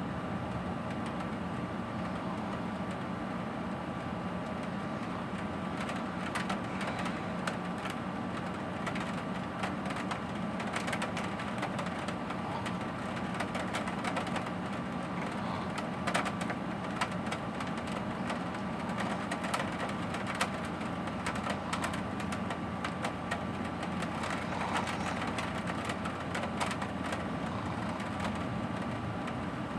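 Steady rain of a thunderstorm, with frequent sharp taps of raindrops from about six seconds in.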